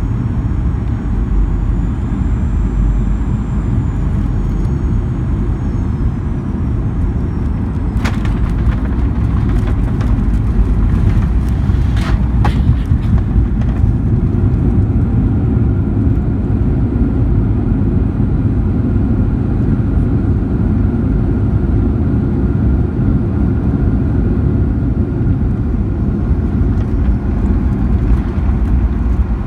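Cabin sound of a Boeing 737-900ER with CFM56-7B engines landing: a steady low rumble, with a sharp thump about eight seconds in as the wheels touch down and more jolts around four seconds later. Then the rumble of the rollout on the runway, with a faint steady engine whine.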